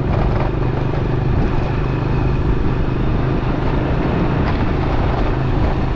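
Motorbike engine running steadily at riding speed, mixed with a steady rush of wind and road noise from the moving bike.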